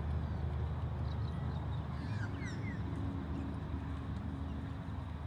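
A led horse walking on grass, its hoofbeats faint under a steady low rumble, with a few short bird chirps about two seconds in.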